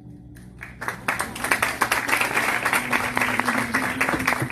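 Audience applauding in a cinema: the clapping starts about a second in and quickly builds to full, steady applause.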